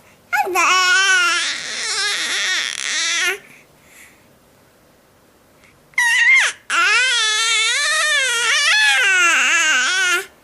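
Baby crying and fussing vocally: two long, wavering, drawn-out wails of about three and four seconds, with a short pause between them.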